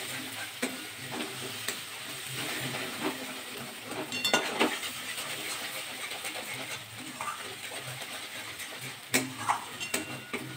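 A metal spatula stirring and scraping a thick masala paste around a metal kadai while the paste sizzles in hot oil, with scattered scrapes and clinks against the pan. The paste is being fried down with dry spices before water is added.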